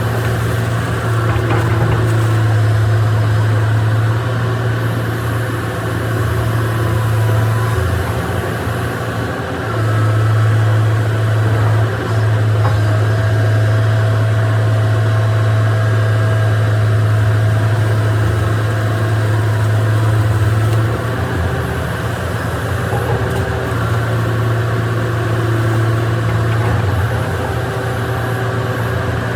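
Excavator's diesel engine running with a steady low drone, dipping briefly about nine seconds in and settling a little quieter from about twenty-one seconds in.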